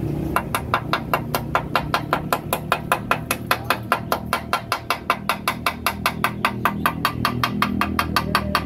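A steel hand tool tapping rapidly and steadily on the freshly welded steel motorcycle frame, about five sharp metal-on-metal strikes a second, chipping at the new weld bead along the repaired frame crack.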